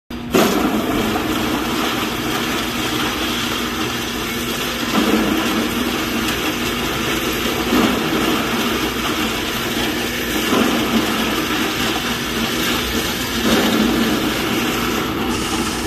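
Dafeng DF21A vegetable cutter running steadily while it chops carrots into fine bits. Its motor and blades give a steady hum that swells into a louder grinding several times, about every three seconds, as carrots are pushed into the hopper.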